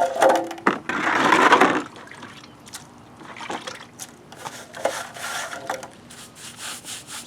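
Wet sand-and-cement bonding mix being worked with a trowel on concrete: a loud wet scrape about a second in, then quieter scraping, turning to quick repeated trowel strokes near the end.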